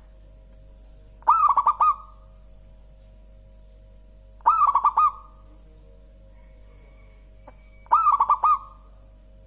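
Zebra dove (perkutut) cooing: three phrases, each a quick run of about five rolling notes, coming about every three and a half seconds.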